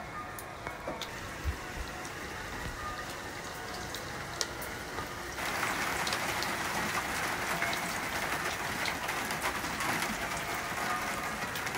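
Heavy rain falling steadily, with scattered individual drips ticking on nearby surfaces. About five seconds in, the rain suddenly becomes louder and denser.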